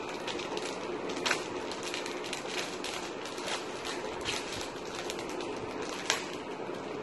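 Thin clear plastic of a face shield and its packaging crinkling and crackling as it is handled and its protective film is peeled, with two sharper crackles, about a second in and near the end, over a steady background noise.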